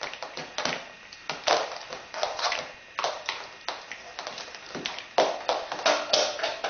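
Irregular taps and clicks of an 85 W MagSafe power adapter and its cord being handled.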